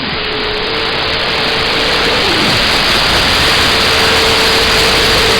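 CB radio receiver hissing with loud, steady static between transmissions, a faint thin whistle wavering under the hiss.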